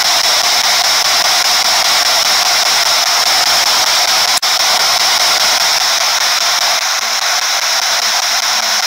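P-SB7 spirit box scanning across radio stations, giving a steady loud hiss of static with a brief cut-out about four seconds in.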